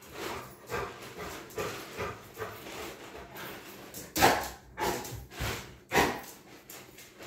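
A large black dog making short excited barks as it begs for food held overhead and jumps up for it. The two loudest barks come about four and six seconds in.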